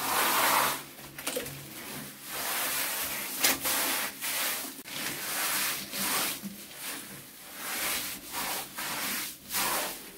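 Cement waterproofing mortar being worked onto a rough brick wall by hand: repeated rough scraping and rubbing strokes, about one a second.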